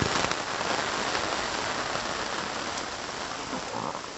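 Steady rain falling on a parasol canopy overhead, an even hiss with scattered drop ticks, easing a little near the end.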